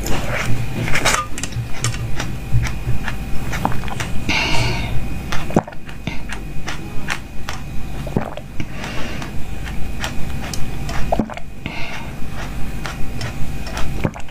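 Close-miked gulping and swallowing as liquid is drunk through the spout of a coiled glass drinking tube, a quick series of wet clicks and gulps about twice a second, with slurps of liquid in between.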